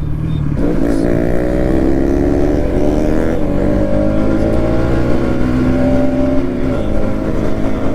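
Bajaj Pulsar NS200's single-cylinder engine pulling under acceleration, its pitch climbing and then dropping twice as it shifts up, about three and about seven seconds in, with wind rushing over the microphone.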